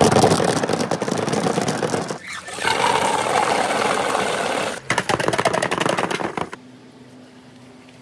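Balls rolling fast along a marble-run track, a dense rattling clatter of rapid clicks in three runs, stopping abruptly about six and a half seconds in.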